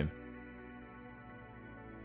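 Soft ambient electronic background music: sustained synth tones holding steady.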